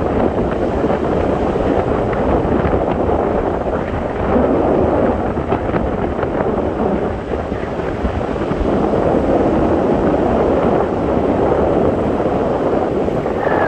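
Wind buffeting the microphone of a camera carried in paragliding flight: a loud, steady rush of air with a low, uneven rumble.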